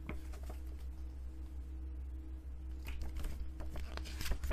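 Light handling of a Blu-ray case and its paper insert: a few soft clicks and paper rustles near the start, then a denser run of them from about three seconds in, over a steady low hum.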